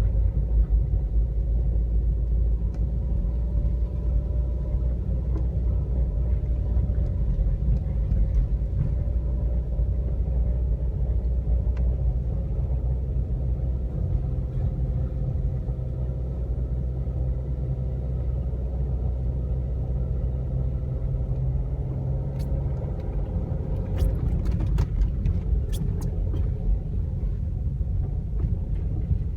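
A car driving along, a steady low rumble of engine and road noise with a faint steady hum above it. A handful of sharp clicks come near the end.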